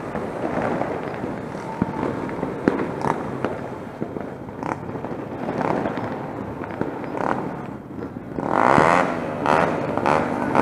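Fireworks and firecrackers going off, with scattered sharp cracks and pops at irregular times and a denser, louder crackling run starting about eight and a half seconds in.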